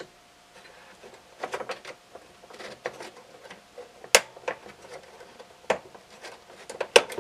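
Small metal parts of a Jeep CJ7 fresh air intake's hinge clicking and scraping as tension washers are worked off by hand, with two sharp clicks about four seconds in and near the end.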